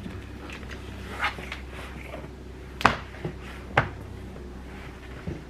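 A few short knocks and thumps of a person stepping out of slippers and moving about barefoot on a hardwood floor, the two loudest about three and four seconds in, over a low steady hum.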